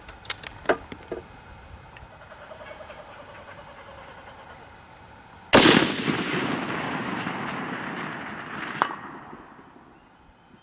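A Howa HLR 6.5 Creedmoor bolt-action rifle fires one shot about five and a half seconds in, and the report rolls away for about three seconds. A few light clicks come in the first second, and a faint sharp crack follows about three seconds after the shot.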